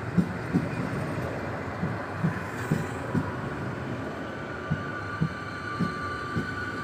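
Passenger train rolling into the station, its wheels thudding irregularly over rail joints and points, a knock every half second or so. In the last couple of seconds a steady two-tone high-pitched whine sets in.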